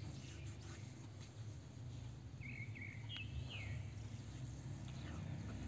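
Faint background sound: a steady low hum with a few short bird chirps around the middle.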